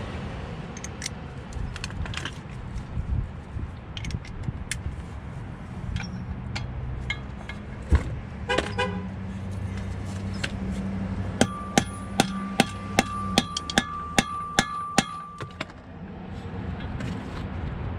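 A hammer striking a bolt-extractor socket to drive it onto a rounded-off 12-point drive-shaft bolt. A few scattered knocks come first, then about two-thirds of the way in a fast, even run of ringing metal-on-metal blows, about three a second, over a low hum.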